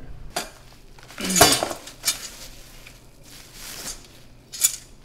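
Metal clinks and rattles of TV tilt-mount brackets and hardware being handled: a few separate clinks, with the loudest clatter about a second and a half in.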